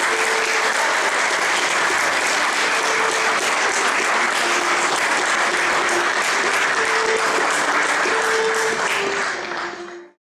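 Audience applauding after a song, a dense steady clatter of clapping with a few faint held tones beneath it, fading out near the end.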